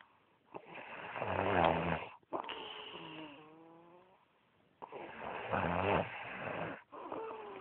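A person snoring heavily in sleep: two loud, rasping snores about four seconds apart, each followed by a softer, wavering whistle-like tone on the breath.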